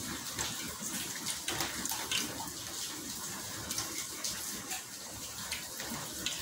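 Heavy rain falling steadily: a constant watery hiss dotted with small sharp clicks.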